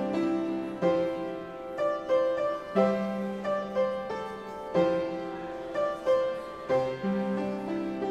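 Piano played slowly on its own, a new chord struck about once a second over ringing notes.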